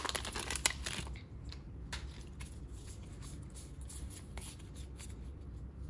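Foil booster pack crinkling as it is torn open and the trading cards are pulled out, loudest in the first second. After that come faint rustles and small clicks of the cards being handled.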